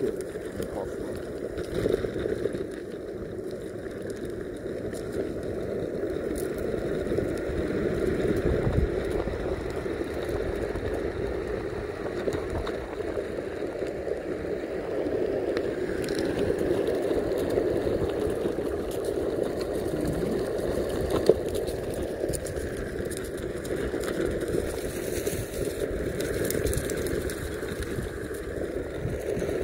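Meepo Mini 2 electric skateboard on Cloud Wheels rolling along a trail: a steady rumble of the wheels over concrete and packed dirt, with one brief knock about two-thirds of the way through.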